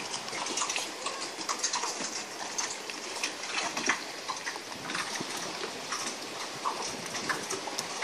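Sea water lapping and sloshing against moored boat hulls and a wooden jetty, full of irregular small plops, clicks and knocks.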